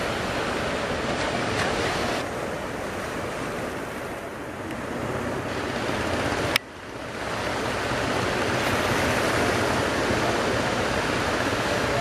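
Sea surf: a steady rush of breaking waves. About six and a half seconds in, a sharp click comes as the sound briefly drops away, then it builds back up.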